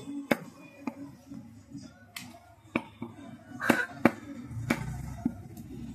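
Knife chopping chicken on a wooden log chopping block, with about eight sharp, irregularly spaced chops.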